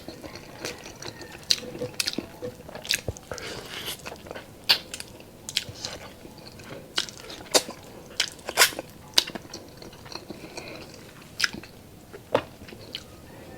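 Close-up eating sounds of a person chewing pork adobo and rice: mouth and lip clicks and smacks coming irregularly, several a second at their busiest.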